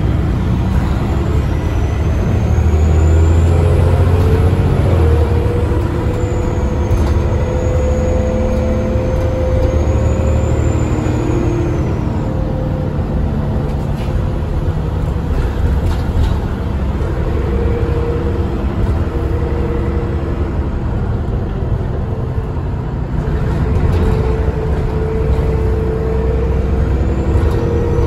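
Alexander ALX400 double-decker bus heard from on board: the diesel engine drones under way, its note shifting as the bus pulls through the gears. Over it a high turbocharger whistle rises and falls several times.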